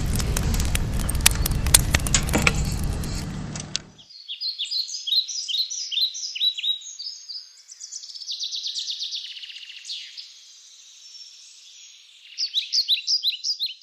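A loud noisy rumble with sharp clicks cuts off abruptly about four seconds in. Birds singing follow: quick repeated chirps and short falling whistled notes, with a fast trill in the middle.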